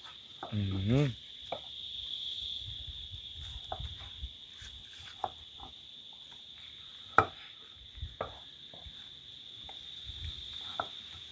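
Knife cutting Irish potato on a wooden cutting board: irregular, scattered knocks of the blade against the board, the sharpest about seven seconds in. Under it, a steady high chirring of insects.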